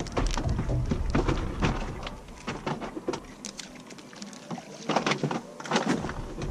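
Scattered clicks and knocks of fishing rods and gear being handled aboard a small boat, over a low rumble that fades out about halfway through and comes back near the end.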